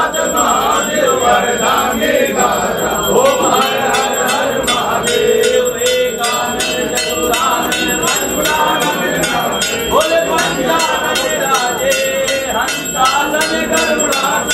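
Hand bell ringing in a steady rhythm during an aarti, over voices singing a devotional chant to Shiva.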